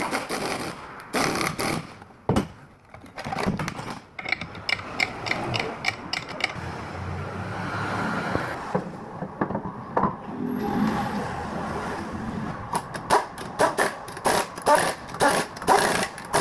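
Mechanic's hand tools working on a car's coil spring and shock assembly: irregular metallic clicks, knocks and clatter, turning into a quick run of sharp clicks about three seconds before the end.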